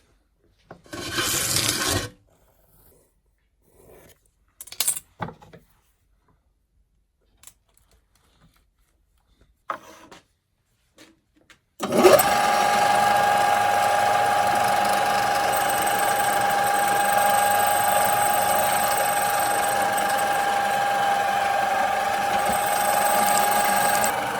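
Scattered clicks and knocks, with a short hissing burst near the start. About halfway through, an electric power tool starts up and runs steadily with a constant whine.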